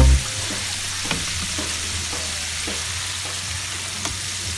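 Chicken pieces deep-frying in a pan of hot oil: a steady sizzle with a few sharp ticks from the bubbling oil.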